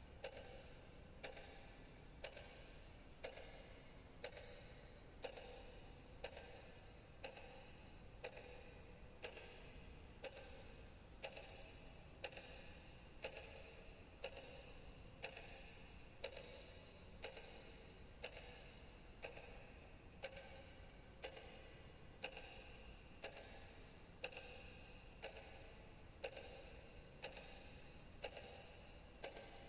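Faint clock ticking, steady at about one tick a second.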